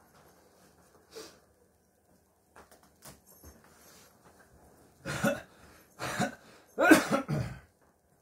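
A person close to the microphone making three short, throaty cough-like bursts about a second apart, the last the loudest and longest.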